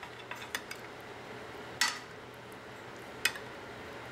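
A metal spoon clinking against a glass baking dish while spooning sauce: a few light taps in the first second, then two louder clinks about two and three seconds in.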